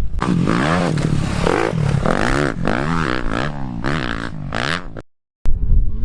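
Dirt bike engine revving, its pitch rising and falling repeatedly as the throttle is worked. It cuts out for a moment about five seconds in, then engine noise comes back.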